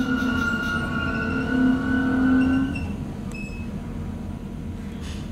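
Metronom double-deck regional train braking into a station, heard from inside the coach: a steady whine of several tones over the running rumble stops about three seconds in, leaving a quieter rumble as the train rolls to a halt.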